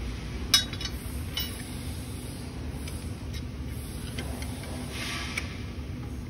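Small metal bolts and the steel frame tubes of a swing chair being handled during assembly: a sharp metallic click about half a second in, a softer one a second later, then a few light ticks and a brief scrape, over a steady low rumble.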